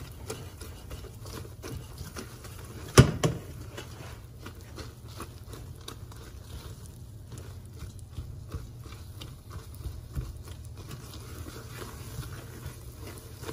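Silicone spatula stirring sticky melting marshmallows and butter in a stainless steel saucepan: soft irregular scraping and clicking against the pan, with one sharp knock about three seconds in. A low steady hum runs underneath.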